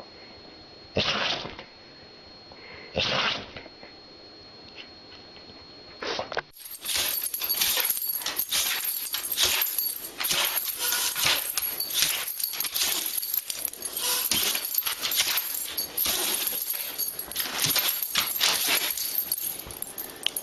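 Two short, loud sneezes about two seconds apart, then a dog reacting with a dense, continuous run of short noises that goes on to the end.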